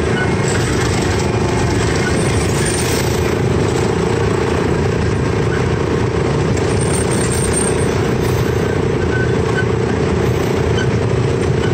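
Chance Rides miniature park train running along its track, heard from the car just behind the locomotive: a steady engine drone with running-gear noise at an even level.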